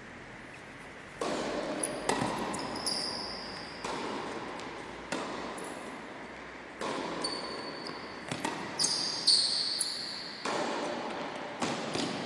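Tennis rally: racket strikes on the ball and ball bounces, about ten sharp hits roughly a second apart, each ringing on in the echo of a large sports hall. Short high squeaks of shoes on the court floor come between some of the hits.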